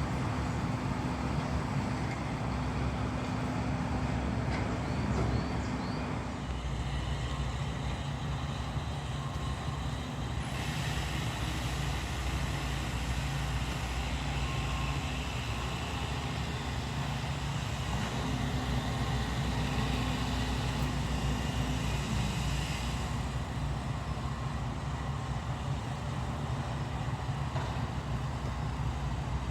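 Steady rumble of vehicle engines and traffic, with an engine's hum that changes pitch a couple of times.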